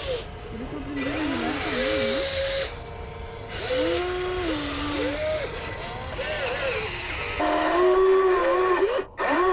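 Electric drive motors and gearboxes of a radio-controlled scale Volvo EC160E excavator whining as it works, the pitch rising and falling with each control movement and stopping briefly between moves.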